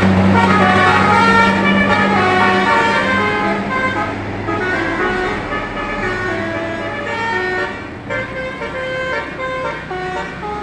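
Bus basuri (telolet) musical horn playing a quick tune of short stepped notes over a steady low engine drone, the whole sound gradually getting quieter.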